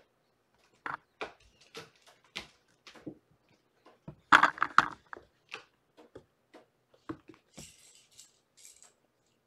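Kittens playing: scattered light knocks and clicks, with a louder quick clatter about four seconds in and a short scratchy rustle near the end.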